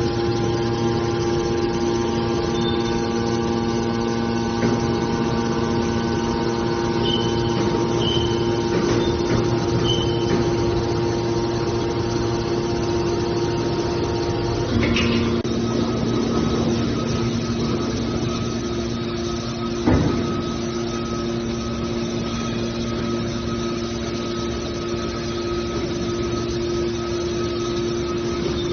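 Hydraulic scrap metal baler running with a steady machine hum. About halfway through its tone shifts with a brief clank, and there is a single sharp knock a few seconds later.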